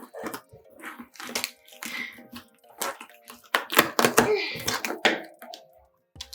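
Handling noises: a run of short clicks, knocks and rustles, loudest in the middle, over a faint steady hum.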